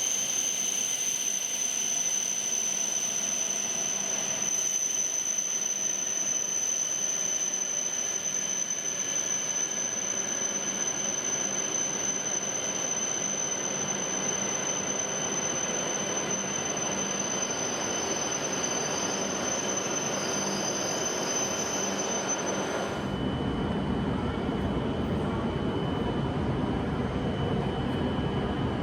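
Hokuriku Shinkansen train in the station, a steady high-pitched whine over its running noise. About three-quarters of the way through the whine cuts off abruptly and a deeper, lower rumble takes over.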